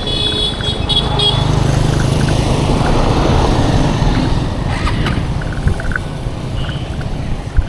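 A road vehicle passing close by, its noise swelling to a peak about three seconds in and then fading. A brief cluster of high steady tones sounds in the first second or so.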